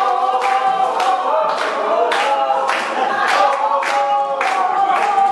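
A group of people singing together in held notes, over sharp regular beats about twice a second.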